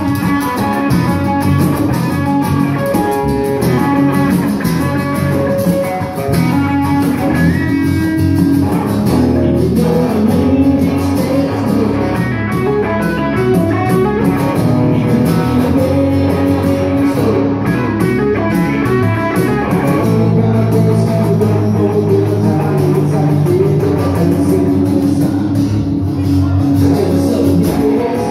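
Live southern rock band playing a song: strummed acoustic guitar, electric guitar, bass guitar and a cajón.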